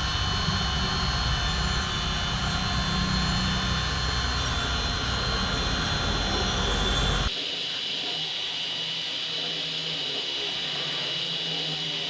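Small 5-axis CNC machine running its G-code program just after cycle start: a steady high whine over a low rumble. About seven seconds in the sound changes abruptly, the rumble dropping away while the high whine carries on.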